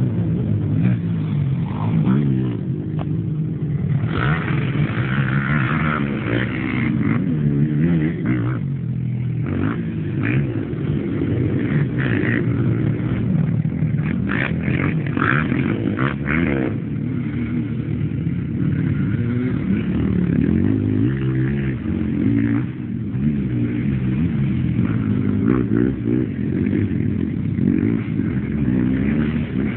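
Several quad bike engines revving hard and dropping back, their pitch rising and falling with throttle and gear changes as they overlap and pass.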